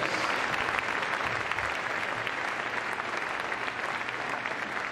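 Audience applauding, a dense clatter of many hands clapping that slowly fades.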